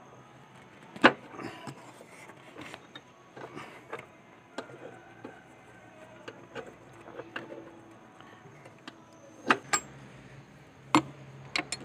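Scattered light clicks and taps of hands handling a brake master cylinder and its brake-line fittings while packing a rag around them under the hood. One sharp click comes about a second in, and a few sharper knocks come near the end.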